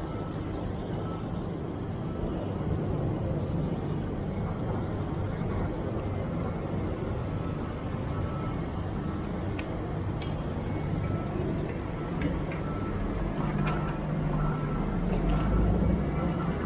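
City street traffic: a steady rush of road noise, with a heavy vehicle's low engine rumble building near the end.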